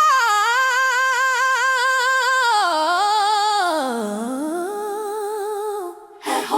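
A solo voice singing a long wordless run with wide vibrato, stepping down in pitch and back up near the end, unaccompanied. It cuts off about six seconds in.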